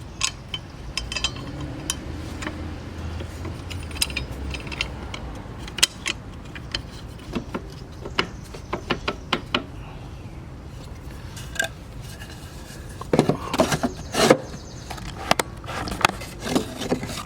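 Small metal clinks and scrapes as a lawn mower blade, its retaining plate and bolt are handled and fitted by hand, with a quick run of louder knocks about thirteen seconds in.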